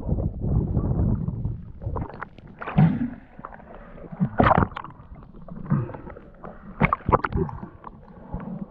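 Water sloshing and gurgling around a diver in a river, with a rumbling wash at first and then a string of sharp knocks and splashes.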